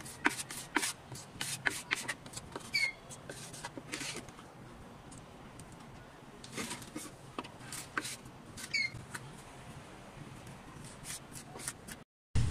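Plastic putty knife scraping and tapping on a wooden strip while spreading wood filler: an irregular run of short scrapes and clicks, thinning out in the middle. A short high chirp is heard a few times.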